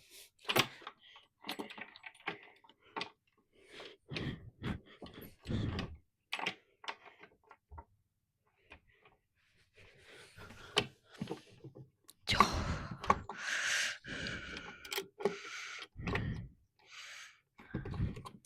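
Band saw parts being adjusted by hand, with scattered clicks, clunks and short scrapes of metal being moved and locked into place. A louder stretch of scraping and rattling comes about twelve seconds in. The saw is not running.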